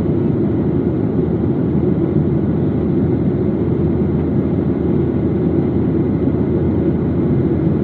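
Steady drone of a jet airliner in flight, heard inside the passenger cabin: engine and airflow noise, deep and unchanging.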